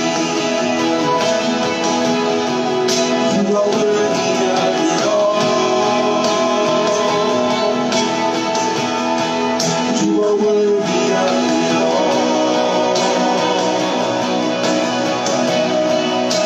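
Worship music from a live church band, led by guitar.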